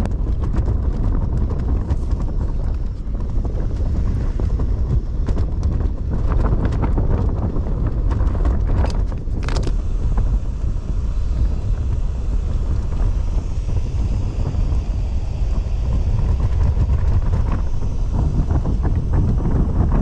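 Gas camping stove burning under a lidded cook pot, a steady low roar mixed with storm wind on the tent, with a few sharp clicks and rustles along the way.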